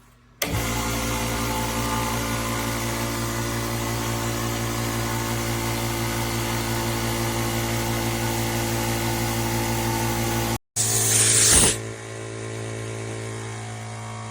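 Electric air compressor running loudly and steadily. Near the end it cuts off abruptly, a short sharp hiss of rushing air follows, and then a compressor runs on more quietly.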